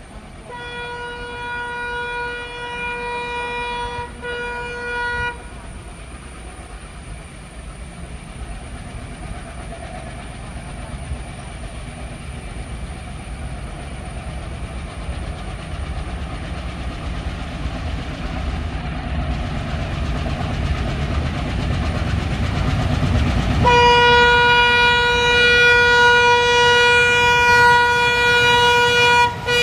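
Twin WDG-3A ALCO diesel freight locomotives approaching under load. The horn sounds a long blast of about five seconds at the start, then the engines' low chugging rumble grows louder as they near, and a second long horn blast runs through the last six seconds.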